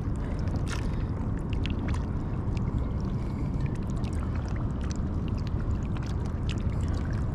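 Shallow water sloshing and lightly splashing around a hand and a mulloway held by the tail in the shallows while the fish is revived, with many small sharp splashes and drips over a steady low rumble.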